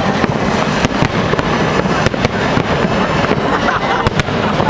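Aerial fireworks going off overhead: many sharp bangs and crackles at irregular intervals over a continuous loud din.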